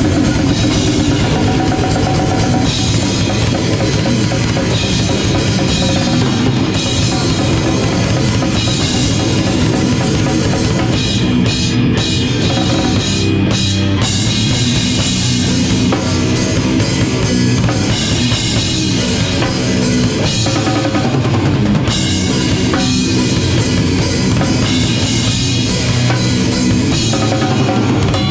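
A rock band playing loudly live, driven by a drum kit with bass drum and snare, the sound dense and continuous.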